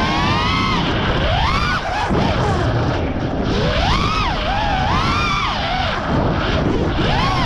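FPV freestyle quadcopter's 6S brushless motors whining, the pitch sweeping up and dropping back again and again as the throttle is punched and chopped, over a steady rush of prop and wind noise.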